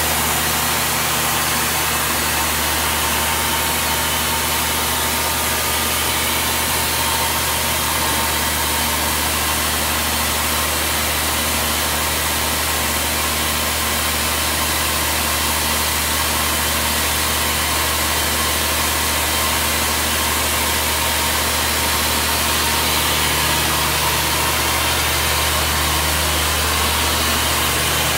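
Diesel engine of a 1994 Ingersoll-Rand T3W truck-mounted drill rig running steadily at constant speed, driving the hydraulics as the mast is raised, with a steady hiss over it.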